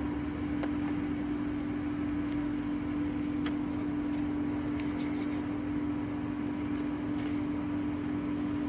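Steady mechanical hum at one unchanging pitch, with a few faint light clicks over it.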